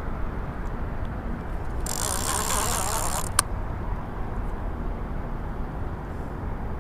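Catfish reel whirring for about a second and a half during the fight with a hooked catfish, followed by a single sharp click, over a steady low rumble.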